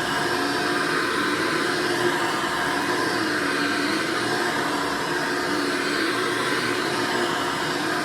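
1993 Hoover Energy Efficient vacuum cleaner running steadily, a constant motor and airflow hum with no change in speed.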